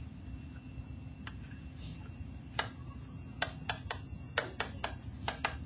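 A pen stylus tapping and clicking against a tablet or smart-board surface while a curve and numbers are written: a few scattered ticks, then a quick irregular run of them over a low, steady hum.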